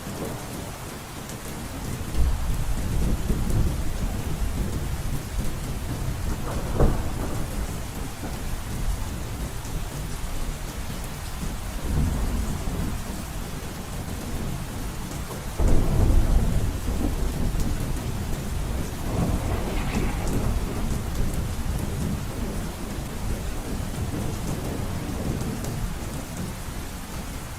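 Heavy rain falling steadily on a roof, with several rolls of thunder rumbling through it. The loudest peal starts suddenly a little past halfway.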